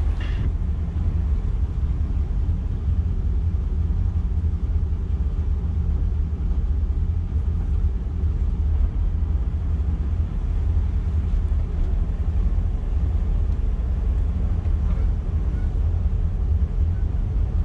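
Twin MerCruiser 7.4-litre V8 inboard engines running at low speed, a steady low rumble, as the boat is manoeuvred slowly on the shifters.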